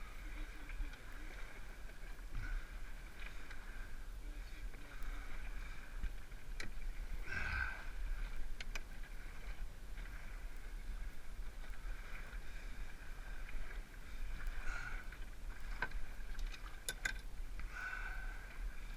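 A canoe being paddled: water swishing with the paddle strokes, rising and falling every few seconds. A few light knocks come in among them.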